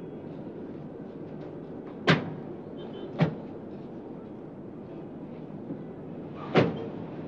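Car doors shutting three times: two about a second apart, the third some three seconds later, over steady low background noise.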